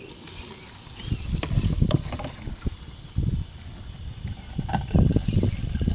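Wind buffeting the microphone in uneven gusts that grow stronger near the end, with a few small knocks.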